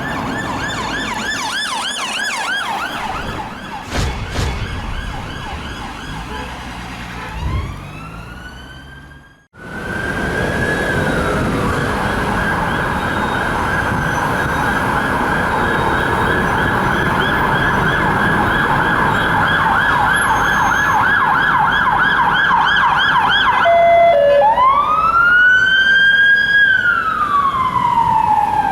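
Electronic emergency-vehicle sirens on a fast yelp, cutting off about a third of the way in. After a brief gap another siren starts, runs on a fast yelp, and switches near the end to a slow rising and falling wail.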